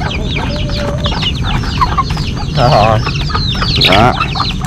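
A flock of chickens and chicks feeding on rice grain: the chicks peep constantly in short, high, falling chirps. Two louder warbling calls from bigger birds come about two and a half and four seconds in.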